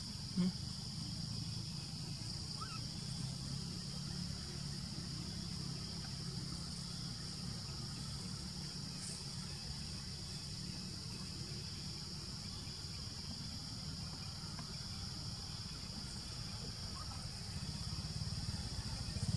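Steady high-pitched drone of forest insects over a low rumble, with a single sharp click about half a second in.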